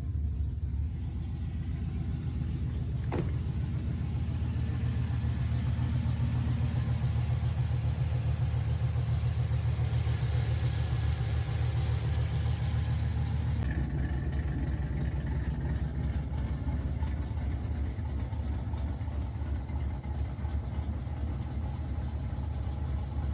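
Chevrolet Silverado pickup's engine idling steadily just after being started, run with fresh coolant in it to check a repaired heater core hose connection for leaks. A brief click about three seconds in.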